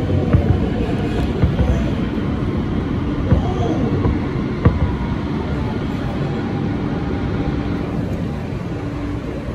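Siemens-propulsion R160B subway car moving along a station platform, heard from inside the car: a steady rumble of wheels on rail with a few sharp clacks in the first half and a faint steady motor tone in the second half.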